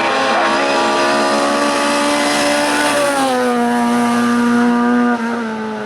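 Race car engine running at high revs under full throttle. About halfway through it shifts up a gear: the pitch drops in one step, then holds steady.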